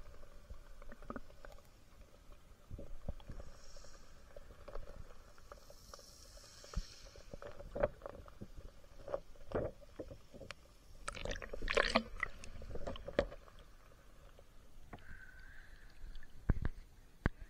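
Muffled sea water heard from a camera held underwater over a pebble bottom: a low rumble with gurgling and scattered sharp clicks and knocks, loudest in a cluster a little after the middle.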